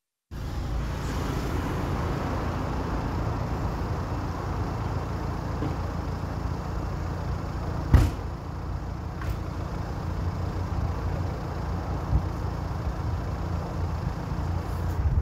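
City avenue street ambience: steady traffic noise from passing cars and buses, with one sharp knock about eight seconds in.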